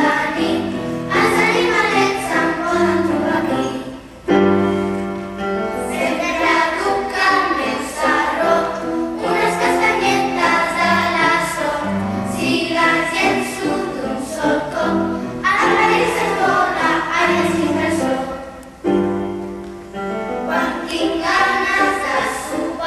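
Children's choir singing a song with piano accompaniment, pausing briefly twice between phrases.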